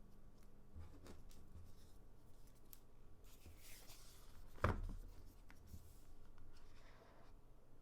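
Hands handling packaging at close range: soft rubbing and rustling with a few small clicks, and one sharper knock a little past halfway.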